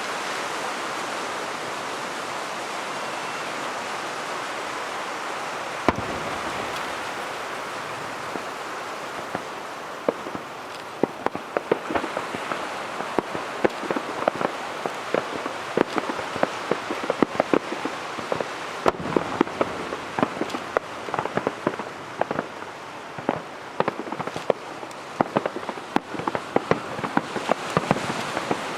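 Fireworks display: a single sharp bang about six seconds in over a steady hiss, then from about ten seconds on a dense, irregular crackling of many small pops, the sound of crackling-star shells bursting.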